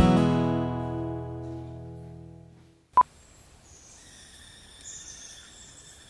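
Acoustic guitar music ends on a ringing chord that fades out over about three seconds. A brief sharp click follows, and then faint outdoor ambience with steady insect chirring and some bird calls.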